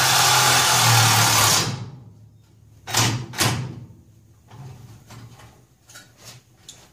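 A power tool runs with a steady whir and hum, then stops about a second and a half in. Two sharp knocks follow close together, then a few lighter taps as parts are worked under the truck.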